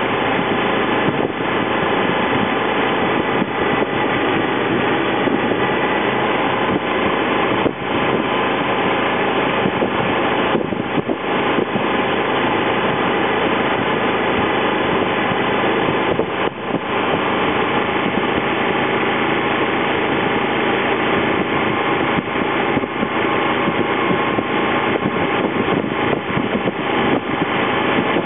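Honda VFR800 V4 motorcycle engine running steadily while riding at an even pace, with a dense rush of road noise over it.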